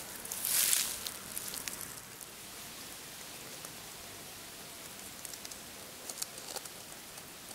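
Grass and dry leaves rustling close to the microphone as a hand brushes through them, loudest about half a second in, then a faint steady hiss with a few soft crackles near the end.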